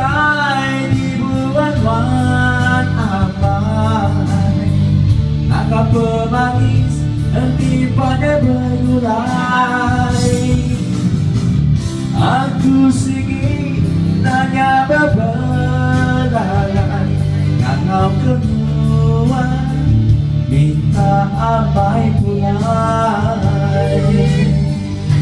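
A man singing karaoke into a microphone over an amplified backing track, in sung phrases of a few seconds each, played through a loudspeaker.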